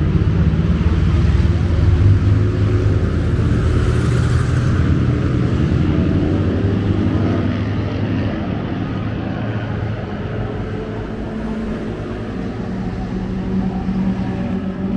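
Vintage motorcycle engine running loudly close by, a steady low pulsing that eases off somewhat about halfway through.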